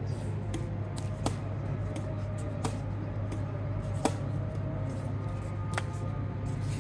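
Badminton rackets striking a shuttlecock in a rally: several sharp hits roughly a second and a half apart, over a steady low hum.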